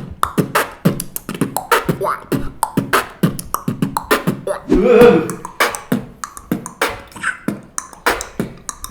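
Human beatboxing: a fast rhythmic run of percussive mouth sounds, several hits a second, with a short pitched vocal sound effect about five seconds in.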